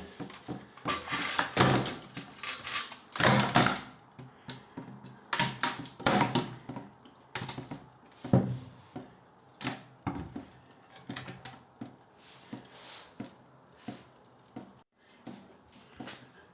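Irregular clatter, knocks and scraping as tools and metal parts are handled while an electric water heater tank is opened up for cleaning. The sounds come thickest in the first few seconds and then sparser.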